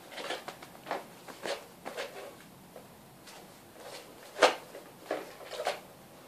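Mega foam darts being pushed one by one into a plastic Nerf Mega Centurion 6-dart magazine: a series of short plastic clicks and scrapes, with one sharper click about two-thirds of the way through.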